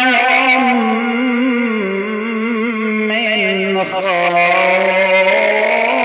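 A man's voice reciting the Quran in the melodic, chanted style, drawing out long held notes with wavering ornaments, with a brief breath about four seconds in.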